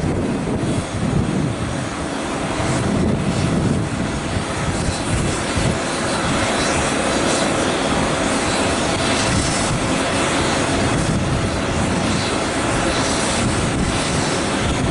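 Steady jet aircraft noise across the airport apron: a broad, continuous rush with a faint high whine running through it.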